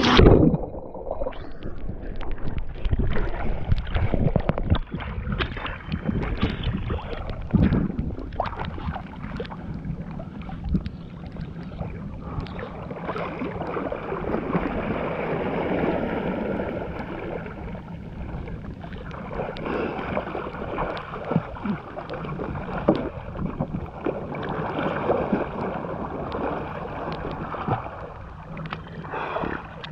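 Water rushing and splashing with wind buffeting the microphone as a kite hydrofoil board moves across the water. A faint steady high tone runs through the second half.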